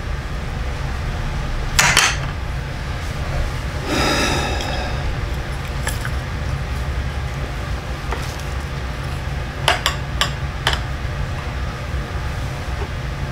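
Chopsticks clicking and clinking against plates and side-dish bowls as food is picked up. There are sharp clicks about two seconds in, a ringing clink around four seconds in and a small cluster of clicks near ten seconds, over a steady low hum.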